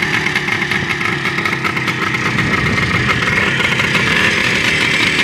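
Freshly rebuilt Jawa 634 motorcycle's two-stroke twin-cylinder engine running steadily at idle.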